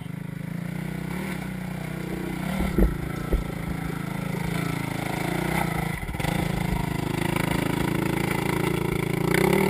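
Off-road dirt bike engine running and revving under load as it climbs a rutted hill, with a couple of dull thuds about three seconds in.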